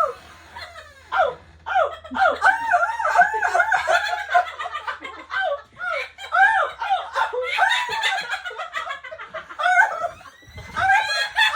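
High-pitched laughing in many quick rising-and-falling bursts, nearly without pause.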